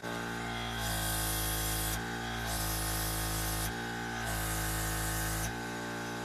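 Background music: sustained chords that change every second or two, with a hissing wash that comes and goes with each change.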